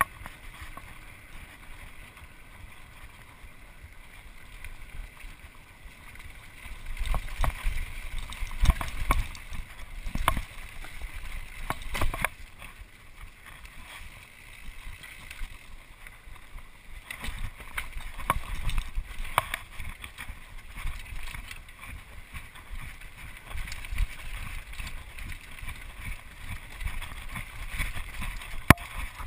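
Mountain bike ridden fast down a dirt singletrack: tyres running over the trail, with bursts of knocks and rattles as the bike crosses roots and rocks, loudest about a third of the way in and again past the middle.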